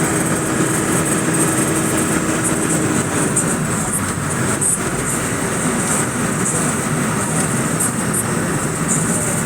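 Steady engine and road noise heard from inside a moving vehicle, with a low steady hum that stops about three seconds in.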